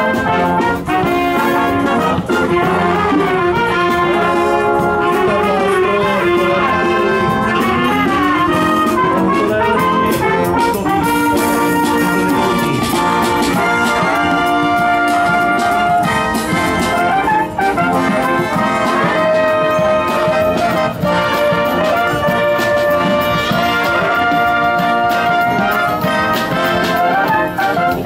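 Military brass band playing live, trumpets and trombones sounding several parts in harmony as one continuous piece.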